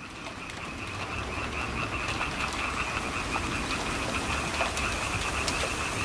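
A chorus of frogs calling in a steady, fast-pulsing trill, with rain pattering and scattered drip clicks beneath it. It fades in over the first two seconds, then holds steady.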